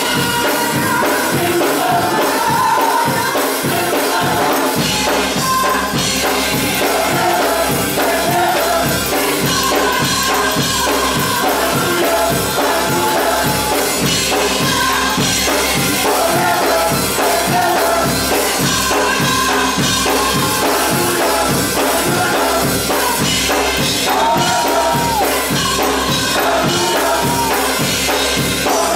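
Gospel choir singing with a live band, drums keeping a steady fast beat; the low end fills in about five seconds in.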